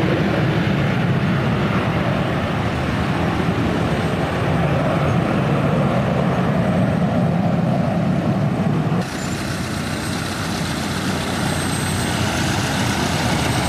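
Boeing 727-200's three JT8D turbofans heard from the ground as the jet climbs away after takeoff: a steady low roar with a hiss on top. About nine seconds in the sound changes abruptly, the low rumble dropping and the hiss growing brighter.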